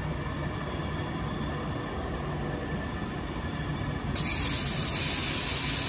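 A Class 390 Pendolino electric train running past on a far line, a steady rumble with a faint hum. About four seconds in, a loud steady hiss starts suddenly and carries on over the train.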